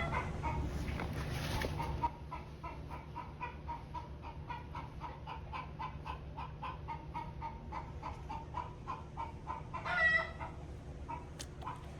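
Chickens clucking, a steady run of short calls about three or four a second, with one louder squawk about ten seconds in. A low rumble underneath drops off about two seconds in.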